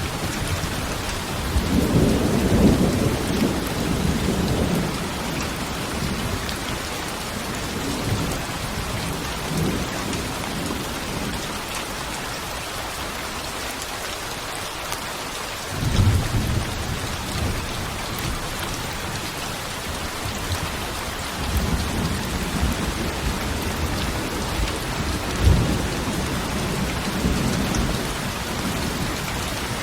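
Steady rain with thunder rumbling several times, loudest a couple of seconds in, with a sudden rumble just past halfway and more rumbling through the last third.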